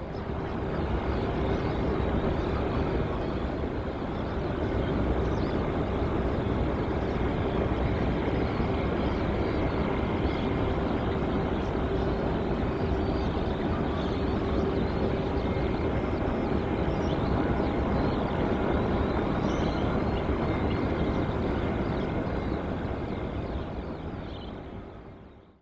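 Steady roar of jet airliner engines, with a steady hum running through it, fading in at the start and fading out near the end.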